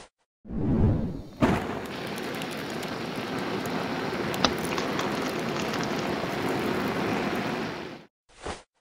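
A burning seed held in tweezers: a short swelling whoosh, a sharp crack, then a steady hiss with scattered small crackles that cuts off about eight seconds in.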